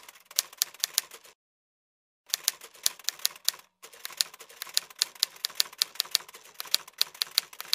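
Typewriter sound effect: a run of mechanical key clacks at about four or five strokes a second. The typing stops for about a second, starts again, pauses briefly near the middle, then runs on to the end.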